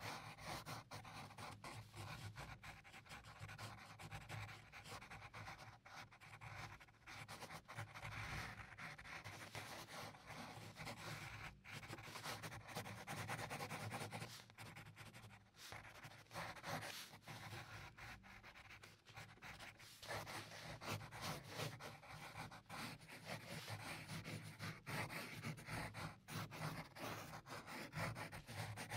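Pencil drawing on paper: the graphite scratches and rubs in a continual run of short, irregular strokes.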